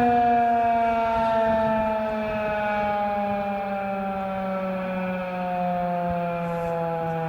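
Federal Signal 2001-130 electromechanical outdoor warning siren sounding a loud, steady tone whose pitch glides slowly downward.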